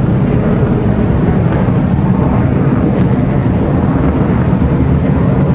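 F-16 Block 60 fighter jet's engine, a steady deep rumble heavy in the low end as the jet flies its display.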